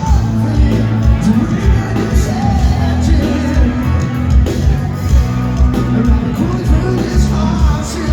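Live rock band playing loudly, a singer's voice over a steady drum beat.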